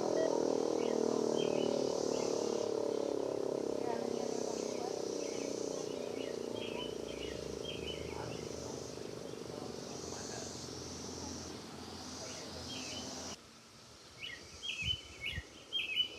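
Sentry 3V8 electromechanical outdoor warning siren winding down after its test, its pitch slowly falling as it fades. About 13 seconds in it cuts off abruptly, leaving birds chirping.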